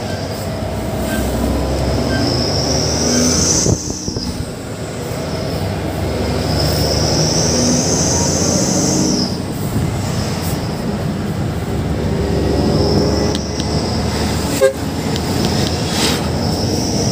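Sany dump truck under way, heard from inside the cab: a steady engine and road rumble, with a high whine that builds and then cuts off a few times, and brief dips where the engine note drops.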